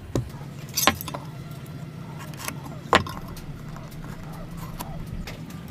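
A few sharp, irregular knocks and metallic clinks of hand woodworking tools, the loudest about three seconds in, over a steady low hum.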